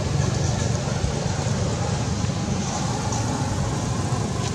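Steady low background rumble, with no clear calls or distinct events.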